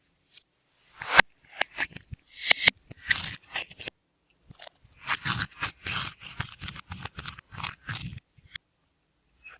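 Slime being mixed, making a run of short sticky pops and clicks. It is quiet for the first second, and the pops come thickest from about five to eight seconds in.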